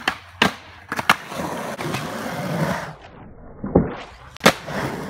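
Skateboard wheels rolling on concrete, broken by about five sharp clacks of the board striking the concrete, two in the first second and two more near the end.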